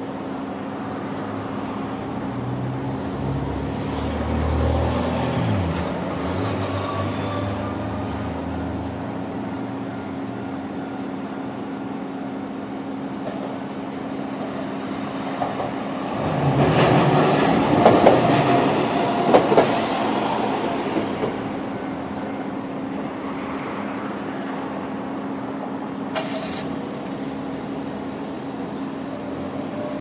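Japanese level-crossing alarm ringing steadily as a KiHa 3710 diesel railcar passes over the crossing, loudest from about 16 to 21 seconds in, its wheels clacking over the rail joints under the diesel engine's running.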